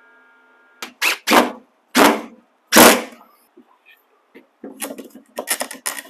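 Miter saw blade coasting down with a fading whine, cut off about a second in by four or five sharp, loud knocks over the next two seconds. A run of lighter clicks and clatter follows near the end.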